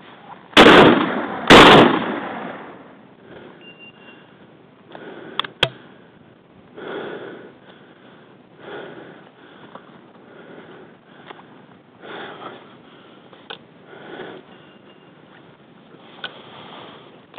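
Two shotgun shots about a second apart, each ringing out and fading. Afterwards, heavy breathing comes every second or two.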